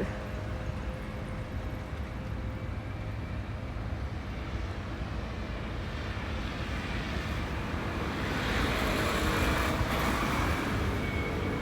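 Steady road traffic rumble, with a vehicle passing and swelling louder about eight seconds in.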